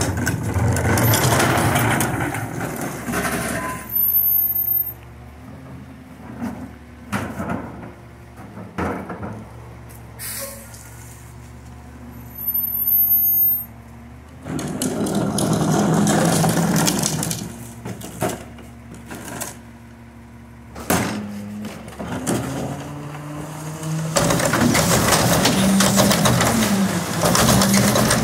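Autocar ACX garbage truck's diesel engine idling, rising three times under load as it drives the McNeilus rear loader's hydraulics that cycle the cart tipper and packer. Scattered knocks and clanks of plastic trash carts against the tipper come in the quieter stretches.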